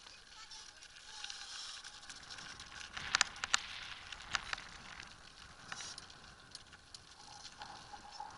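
Crackling hiss from a blokart land-sailing cart's sail and rig as it sails, with a cluster of sharp clicks and snaps about three seconds in and a few single clicks after.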